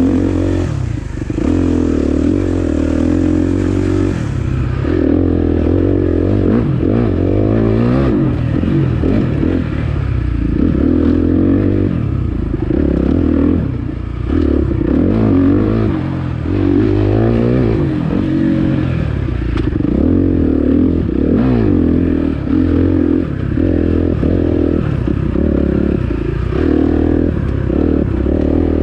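Dirt bike engine revving up and down hard, its pitch rising and falling every second or two as the throttle is worked.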